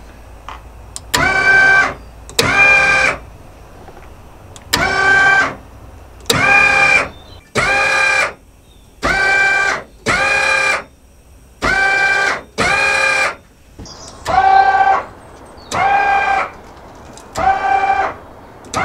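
Electric linear actuator of a homemade DRS rear wing whirring in about a dozen short bursts, each under a second long, as it is switched on and off to move the wing. Several bursts start with a sharp click.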